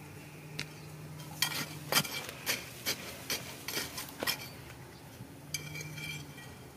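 A flat metal hand digging tool striking and chopping into stony soil, about eight sharp clinks of steel on rock chips in quick succession. Near the end comes a short grating scrape as the blade drags through the gravel.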